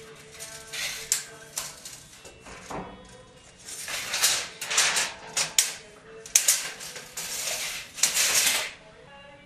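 Steel tape measure being pulled out and run along a wooden ceiling beam: a series of short scraping, rattling rustles, light at first and louder and quicker in the second half. Soft background music underneath.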